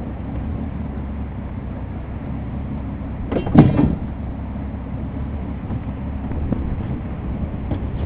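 A small fishing boat's engine running steadily with water and wind noise on the hull, and a brief louder sound about three and a half seconds in.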